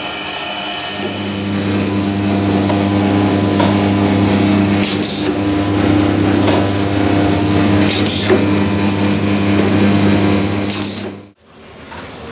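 A machine's electric motor runs with a steady low hum, starting about a second in and cutting off suddenly near the end. Two short hisses come in around the middle.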